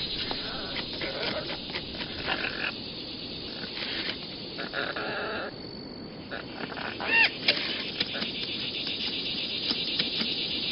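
Rainforest ambience: a steady hiss of insects and frogs with animal calls coming and going, among them a short call that rises and falls about seven seconds in.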